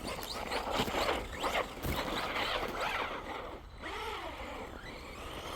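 An electric RC truck's motor whining as it is throttled on and off, its pitch rising and falling several times.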